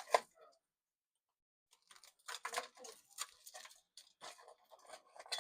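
Light, irregular clicks and scrapes of a knife working on roast yellow yam: one click at the start, a pause, then a string of short clicks from about two seconds in.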